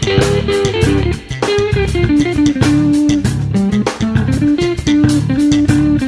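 Instrumental background music: a guitar melody over bass and drums with a steady beat.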